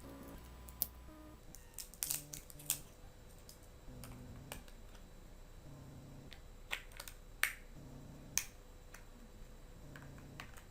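Scattered sharp plastic clicks and handling of a TV remote control as its tight battery cover is worked open and batteries are fitted.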